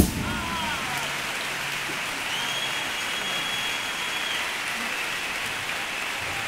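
Theatre audience applauding steadily as a chirigota's sung number ends, right after a final loud hit at the very start, with a long high whistle in the middle.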